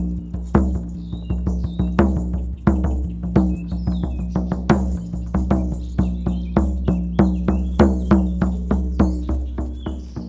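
Shamanic frame drum beaten by hand in a steady rhythm, about two to three strikes a second with regular heavier accents, each boom ringing on with a deep, sustained tone.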